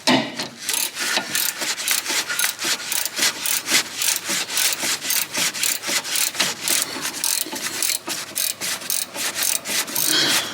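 Hand ratchet wrench being worked back and forth to tighten a nut on a car's suspension, giving a steady run of raspy clicking strokes at about four a second.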